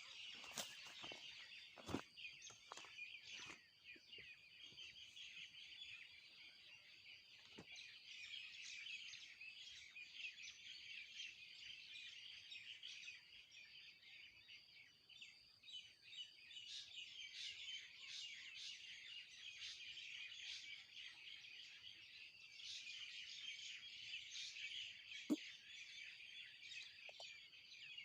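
A flock of small birds chirping without a break, many short calls overlapping, faint. A sharp tap sounds about two seconds in, and a louder one near the end.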